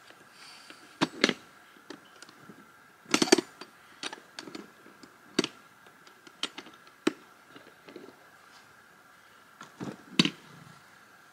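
Scattered knocks, clicks and snaps of twigs and firewood being handled and broken while laying a fire in a flat-pack fire pit, with a few louder knocks.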